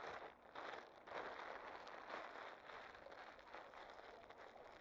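Faint rushing background noise that swells and eases irregularly, with no distinct event.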